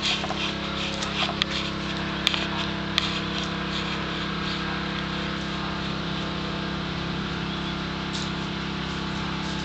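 Steady low hum of a running motor, even and unchanging, with a few sharp clicks in the first three seconds.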